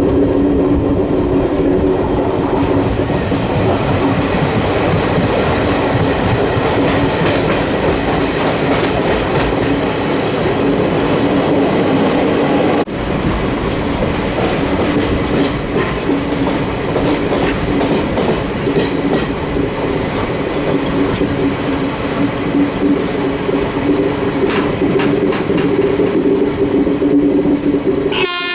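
Koyna Express passenger train, hauled by a WCAM electric locomotive, running along the track with a steady hum and wheels clicking over rail joints. The locomotive's horn starts sounding right at the end.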